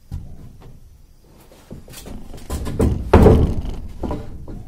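A long wooden plank knocking and scraping against a wooden railing as it is lifted and shifted in its place, a run of hollow knocks with the loudest clatter a little past three seconds in.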